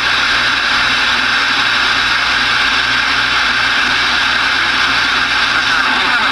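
Steady static hiss from a Connex CX-33SSB Saturn 10-meter radio's speaker, receiving an empty band with no clear signal, since the skip has faded out.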